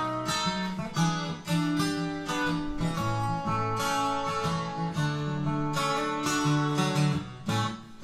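Steel-string acoustic guitar playing an instrumental break: a picked melody over strummed chords and bass notes, with no singing.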